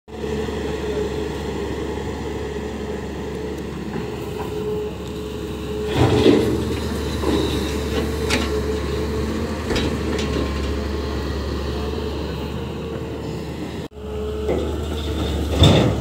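Hyundai crawler excavator's diesel engine running steadily under working load, its hydraulics swinging the boom, with several knocks and clatters as the bucket works over the tipper truck; the loudest, just before the end, comes as a bucket of soil is dropped into the steel truck body.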